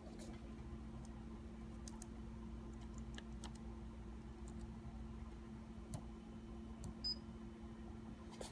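Faint fingertip taps on a Sharp MX-5141 copier's touchscreen as the admin password is keyed in, scattered every second or so over a steady low hum. About seven seconds in, the panel gives one short high beep.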